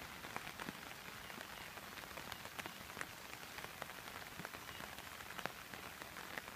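Steady rain falling, an even hiss with scattered sharp ticks of individual drops landing close by.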